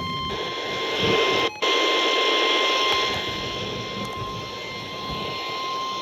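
Emergency Alert System attention tone: one steady high tone over loud, harsh static hiss. Both cut out briefly about one and a half seconds in, then carry on.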